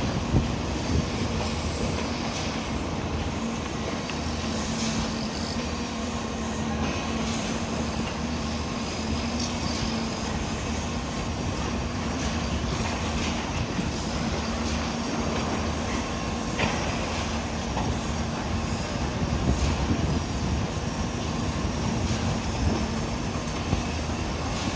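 Heavy diesel machinery running steadily during a concrete pour, with a constant low hum and a few scattered knocks.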